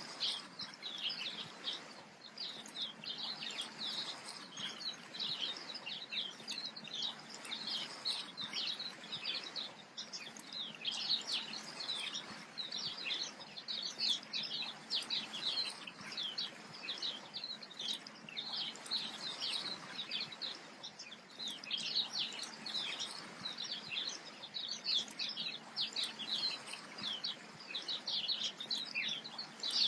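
Birds chirping continuously: many short, overlapping high chirps with no pause, over a faint hiss.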